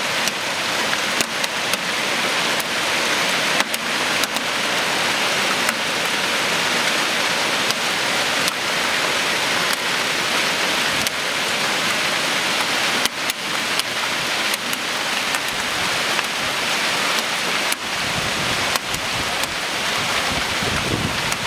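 Heavy hail and rain pouring down onto a street and parked cars: a dense, steady hiss studded with many sharp clicks of hailstones striking close by. A low rumble builds near the end.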